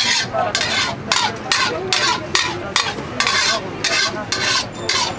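A metal ladle stirring rice in broth in a giant metal cooking pot, in rhythmic strokes about two a second.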